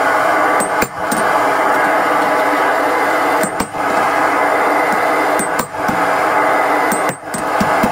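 A few widely spaced blows of a hand hammer on glowing hot steel held in tongs on the anvil, under a steady loud rushing noise.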